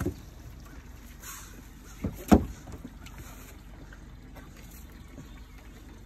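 A few hollow knocks and thumps from people moving about in a small boat, the loudest a pair of sharp knocks about two seconds in, over a low steady background rumble.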